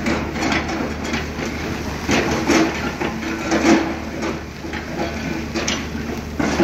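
Excavator engine running under load while its bucket rakes rock and soil down a steep slope, with irregular clattering of stones and debris tumbling down the face.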